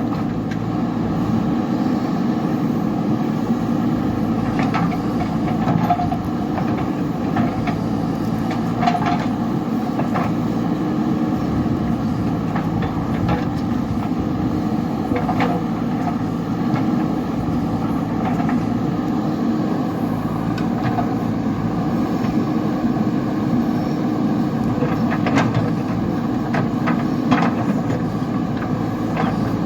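JCB backhoe loader's diesel engine running steadily while working, with a few sharp metallic clanks spaced several seconds apart.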